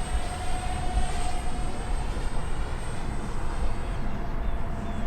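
Four small electric ducted fans of a 3D-printed YB-49 RC flying wing in flight, a steady high whine that fades in the second half, over a low rumble.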